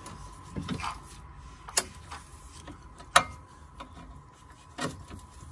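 Hand ratchet and 16 mm socket loosening a bolt: scattered ratchet clicks, the sharpest about three seconds in.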